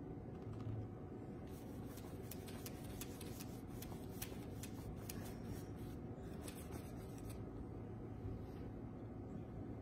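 Paintbrush bristles scratching and dabbing on canvas in short repeated strokes, faint, over a steady low room hum.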